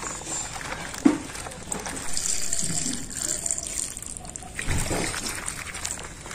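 Water sloshing and trickling in a steel bowl as hands wash cut taro stolons, with a couple of sharp knocks, one about a second in and another near five seconds.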